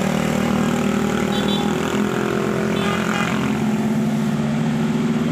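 A bus's basuri 'telolet' multi-tone air horn playing long held notes as a chord, moving to new notes about two and four seconds in.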